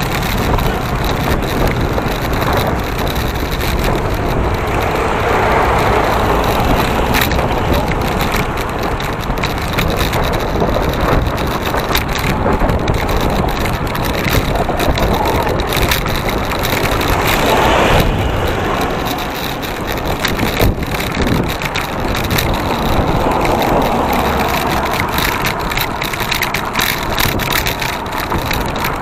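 Steady wind rush on the microphone mixed with the road and engine noise of the moving vehicle carrying the camera, easing slightly about two-thirds of the way through.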